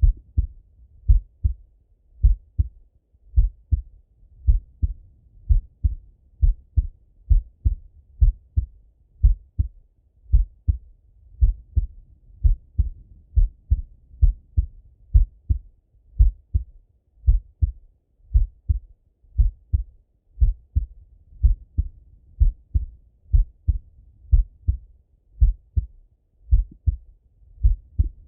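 A man's slow, steady heartbeat heard through a Littmann stethoscope. Each beat is a low double thud (lub-dub), repeating evenly with no break.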